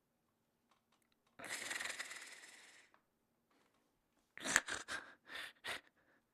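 Cartoon snoring: one long raspy in-breath snore, then a run of short breathy puffs near the end.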